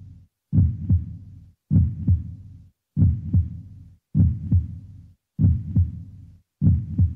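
Looped heartbeat-style sound effect: a deep double thump, lub-dub, repeating about every 1.2 seconds, six times. Each pair trails off into a low rumble and cuts off sharply before the next.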